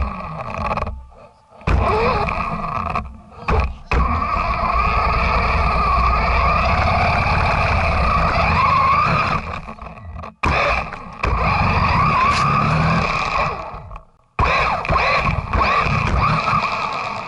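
Radio-controlled 4x4 truck's motor and drivetrain whining as it drives through snow, heard from a camera mounted on the truck. The pitch wavers with speed, and the sound cuts out abruptly a few times, about a second in, near ten seconds and around fourteen seconds.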